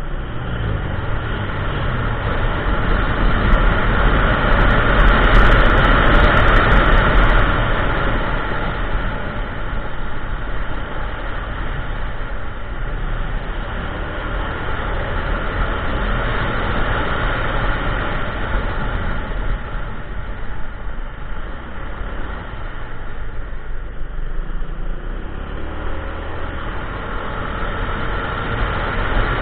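Wind and road noise with the Kymco Xciting 400i scooter's single-cylinder engine running under way, loudest a few seconds in. The engine's pitch falls at the start and rises again near the end as the scooter speeds up.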